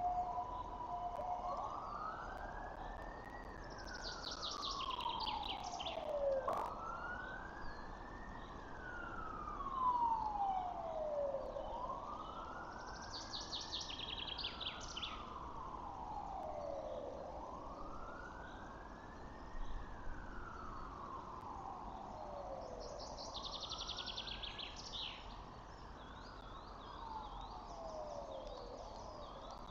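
A siren wailing, its pitch rising and falling over and over at about one cycle every five seconds, with three short bursts of high, rapid bird chirps.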